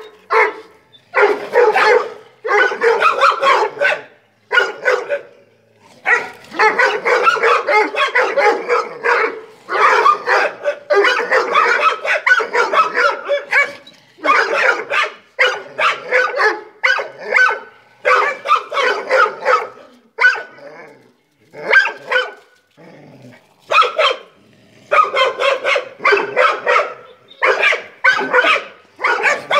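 Dogs barking loudly in rapid runs of barks, with short pauses between the runs and a quieter spell a little after the middle.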